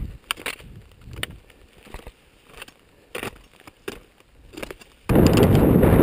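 Irregular crunching footsteps and pole strikes on rock and scree, a few a second. About five seconds in this gives way abruptly to loud, steady wind buffeting the microphone.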